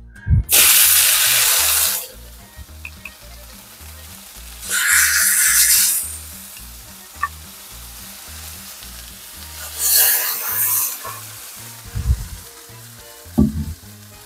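Marinated pork chops laid onto a hot steel plancha one after another, each hitting the plate with a loud sizzle that lasts a second or so: three sizzles in all, about four to five seconds apart.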